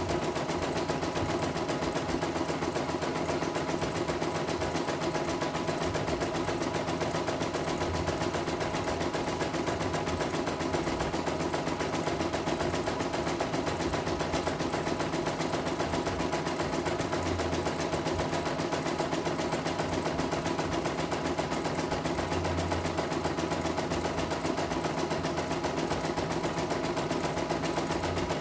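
CNY E900 portable computerized embroidery machine stitching a design: a fast, even needle rhythm over a steady motor hum. It is running smoothly on a test run, with no trouble.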